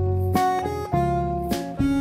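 Background music led by strummed acoustic guitar, with the chord changing every half second or so.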